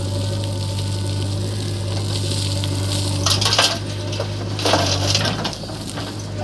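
JCB backhoe loader's diesel engine running steadily, with two short bursts of crunching and clattering from the bucket working soil, a little over three seconds in and again about five seconds in.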